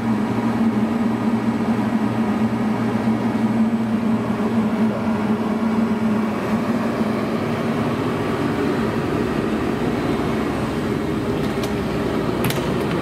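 Steady electrical hum with a low drone from the open control cabinet of a CNC tool grinder, its cabinet air conditioner running. The hum fades after about six or seven seconds into a more even noise, and a few sharp clicks come near the end.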